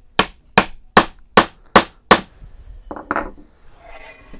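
Hammer striking the wooden handle of a tool tote, driving its tight-fitting tenon into the mortise: six sharp blows a little over two a second. A brief, softer rustle follows about three seconds in.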